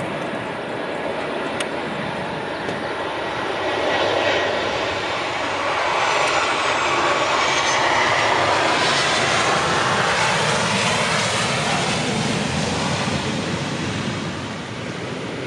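Boeing 737-900ER's CFM56 jet engines passing close as the airliner lands. The engine noise swells to its loudest about halfway, with a whine that falls in pitch as the plane goes by, then eases off as it rolls out on the runway.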